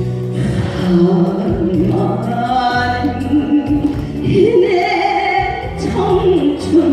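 Amplified music from a live stage performance of a song: a melody line with a wavering vibrato over a continuous backing track.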